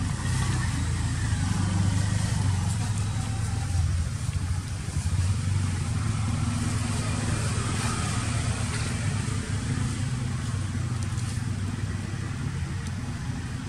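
Steady low hum of a running engine.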